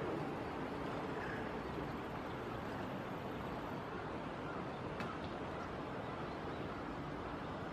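Steady rushing of shallow stream water running over rocks, with a faint click or two about five seconds in.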